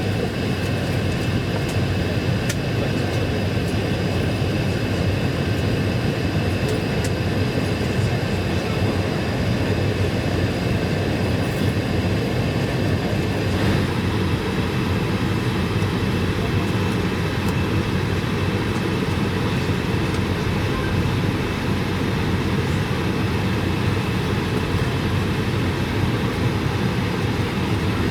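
Steady cabin noise inside an Airbus A220-300: a low, even rumble with several high, steady whining tones over it. About halfway through, the rumble shifts slightly in character.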